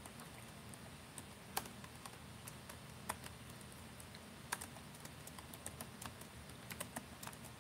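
Faint, irregular keystrokes on a computer keyboard as a word is typed.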